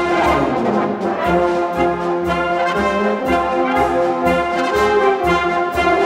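Military brass band playing a march-like song arrangement: horns, trombones and trumpets carry the melody over a steady beat of low bass notes and cymbal strikes about twice a second.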